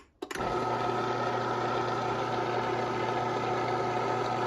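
LiftMaster 3220 screw-drive garage door opener's AC motor clicking on and then running steadily, unloaded with no rail or door, with a low hum and a steady whine.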